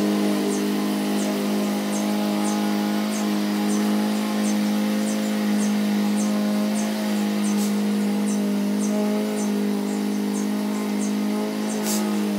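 A motor running steadily, a low drone held at one pitch, with faint high ticks repeating about twice a second and a short hiss near the end.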